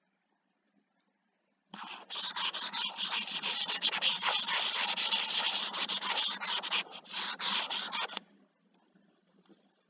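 Stylus scrubbed rapidly back and forth on a pen tablet while erasing handwriting, a dense scratchy rubbing made of many quick strokes. It starts about two seconds in, breaks off briefly near seven seconds, and stops about a second later.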